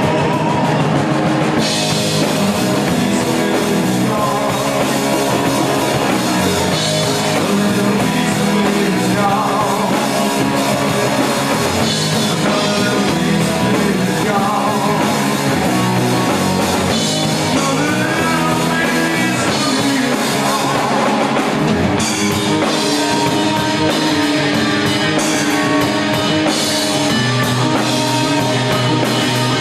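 Live rock band playing: a man singing lead over electric guitar, bass guitar and drum kit, with the cymbals coming in about two seconds in.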